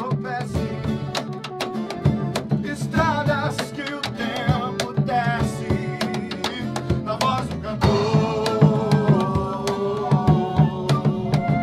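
Live acoustic band music: a strummed acoustic guitar and hand percussion keep a steady rhythm under a flute melody, growing fuller about eight seconds in.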